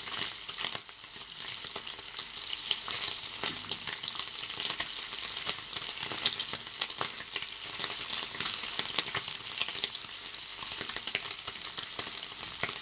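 Super-thin streaky bacon sizzling in a frying pan, a steady hiss full of small crackles and pops, while the rashers are turned over with tongs. The bacon is nearly cooked, shrinking as its fat renders.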